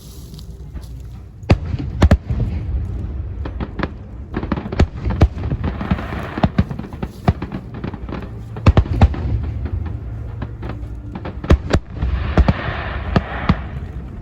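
Aerial fireworks display: many sharp bangs of shells bursting in quick succession over a low rumble, with crackling around six seconds in and again about twelve to thirteen seconds in.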